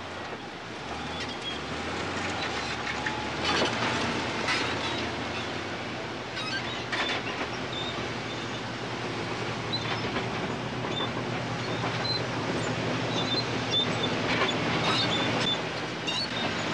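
Diesel engine of a tracked earth-moving machine running steadily, its steel tracks and bucket clanking and squealing as it works over rubble and stone, with repeated sharp knocks.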